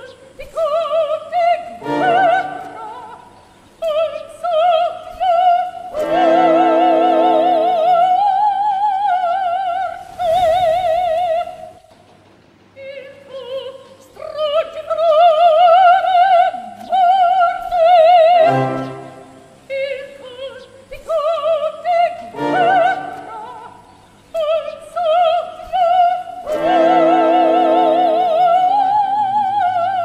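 Operatic singing in a high voice with a wide, fast vibrato, sung in long held phrases with short breaks; the same run of phrases comes round again about halfway through.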